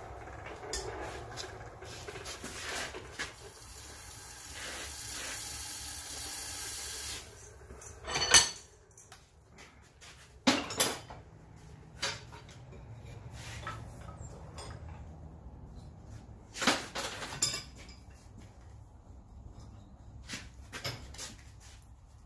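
Metalwork at the forge: a steady hiss for about the first seven seconds that stops abruptly, then a handful of sharp metal clanks as the hot steel bar and tongs are handled.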